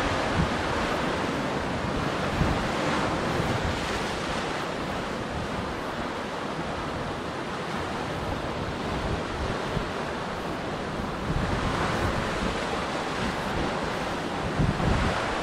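Ocean surf washing and breaking over a rock shelf at the foot of sea cliffs, a steady rushing wash. Wind buffets the microphone in gusts near the start and again near the end.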